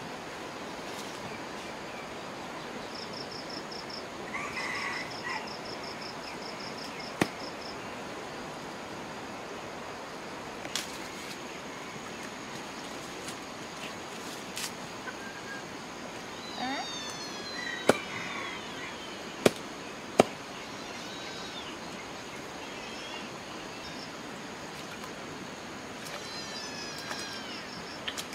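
Outdoor ambience with a steady hiss, a rapid high trill early on and high descending chirps later. A few sharp knocks stand out, the loudest three coming about 18 to 20 seconds in, from a cleaver striking a wooden chopping block as fish is cut.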